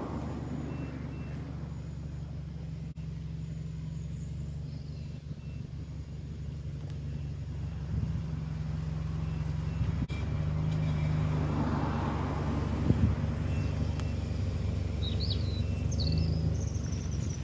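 Toyota Yaris hatchback reversing slowly at idle: a steady low engine hum that grows louder about ten seconds in as the car backs closer.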